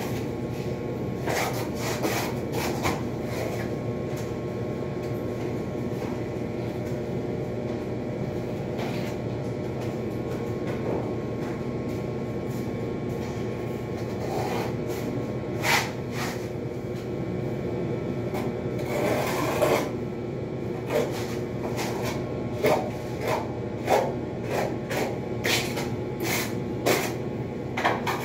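Irregular scraping and rubbing strokes of tile-setting hand tools, few at first and coming thick and fast in the second half, over a steady machine hum.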